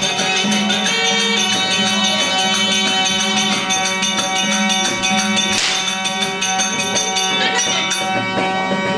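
Therukoothu accompaniment: a harmonium holds steady drone tones while a hand drum beats and a high wind instrument plays a winding melody above.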